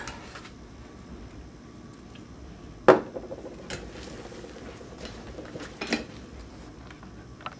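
A few sharp clicks and knocks of hard objects being handled on a workbench, the loudest about three seconds in with a brief ring after it.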